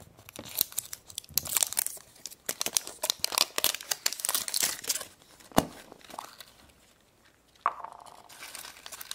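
Wrapper of a surprise egg being torn open and crinkled by hand: irregular crackling and tearing, with one sharp snap a little past halfway and a short lull before the crinkling resumes.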